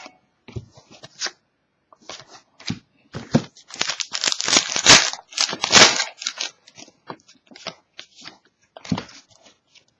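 Trading cards and their foil pack wrapper being handled: quick crinkling and rustling, thickest and loudest in the middle.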